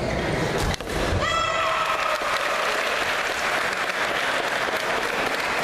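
A sharp hit a little under a second in, then a high shout and spectators applauding and cheering as a badminton rally ends.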